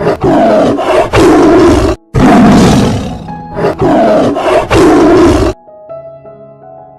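A loud animal roar, played twice in near-identical takes: the first ends about 2 s in, the second starts right after and cuts off about 5.5 s in. Soft background music runs underneath, then continues on its own.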